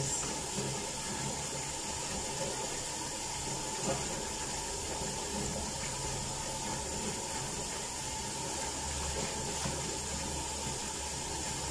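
Water running steadily from a tap in a small tiled bathroom, while a dog is lathered up for a bath.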